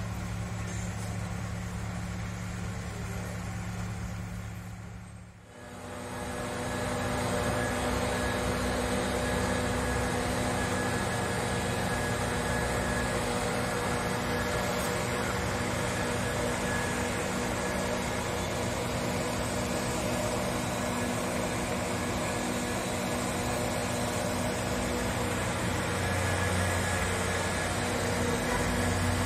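Diesel engines of road-works machinery running with a steady hum. About five seconds in the sound drops away briefly, then comes back as a different steady engine note.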